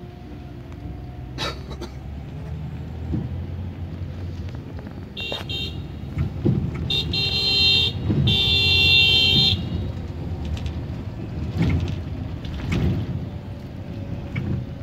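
A Scania bus's engine running as it drives, heard from the cab. Near the middle the horn sounds three times: a short toot, then two longer blasts, the last about a second and a half long and the loudest.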